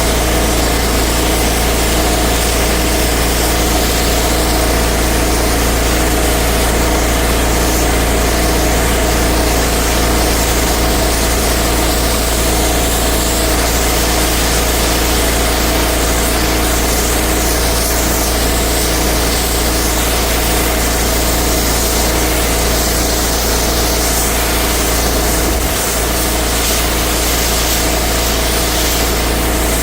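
Pressure washer running steadily: a constant engine drone with a high hiss over it.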